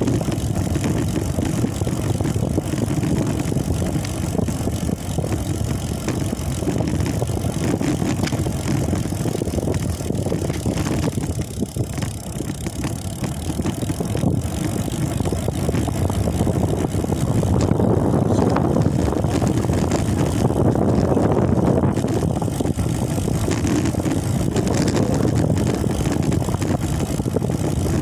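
Steady road rumble of a moving vehicle with wind buffeting the microphone; it swells somewhat louder about two-thirds of the way through.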